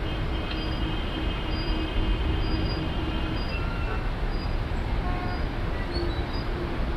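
Distant jet engine rumble from an Airbus A330-343's Rolls-Royce Trent 700 engines as the airliner rolls along the runway, a steady, even sound.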